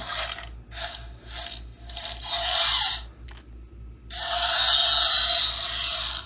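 Electronic screeching sound effect of a Mattel Jurassic World pterosaur action figure, played through the toy's small built-in speaker. It gives a few short raspy bursts, then after a pause a longer screech lasting about two seconds.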